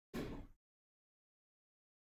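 Dead silence, broken near the start by one short sound about half a second long.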